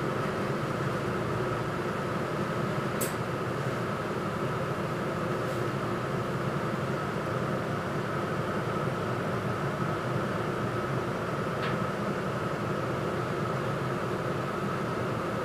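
Steady hum inside a city bus, its engine and air conditioning running as it moves slowly in traffic, with a thin steady whine above the rumble. Two brief faint clicks, about three seconds in and again later.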